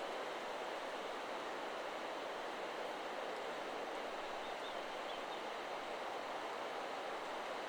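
Wind rushing steadily through forest trees, a constant rustle of leaves, with a few faint high bird notes about halfway through.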